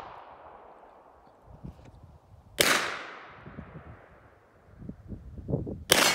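Two pistol shots from a 9mm Glock 34, fired slowly about three seconds apart, each sharp crack trailing off in an echo lasting a second or more; the second shot comes near the end.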